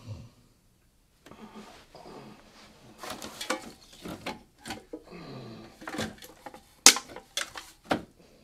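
A hungover man groaning and stirring on the floor, with a falling groan about halfway through and two sharp knocks near the end.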